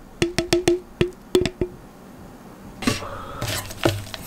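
A clear plastic jar knocked repeatedly against a plastic yogurt tub to shake out the last granola: a quick run of about eight sharp clicks, each with a short ring. Near the end, a wooden spoon scrapes and stirs in the thick yogurt.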